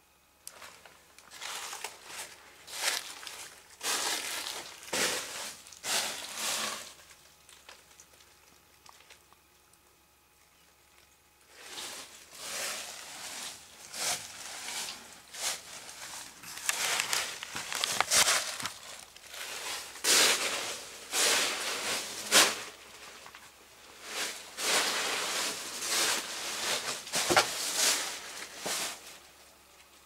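Footsteps crunching and scraping over a floor strewn with dry debris and leaves, in irregular steps with a pause of a few seconds early on before they resume.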